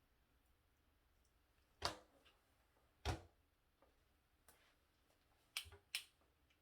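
A quiet room broken by a handful of sharp knocks or taps, the two loudest about a second apart and a few lighter ones after.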